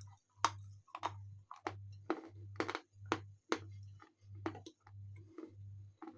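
Pieces of Khrapovsky chalk crunching as they are bitten and chewed, a run of sharp crisp crunches at about two a second.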